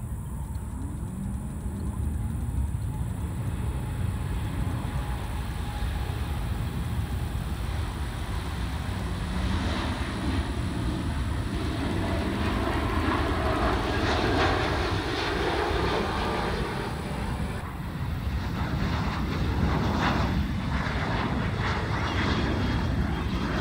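Jet engines of a Boeing 737-700 airliner at takeoff power as it lifts off and climbs away. A low rumble swells into a loud rushing noise from about eight seconds in, dips briefly around eighteen seconds, then comes back strong.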